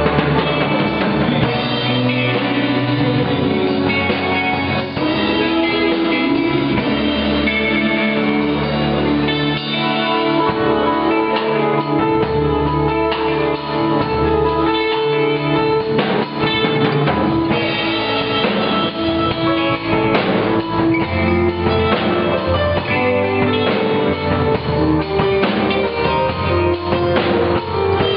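Rock band playing live, with guitar over a drum kit.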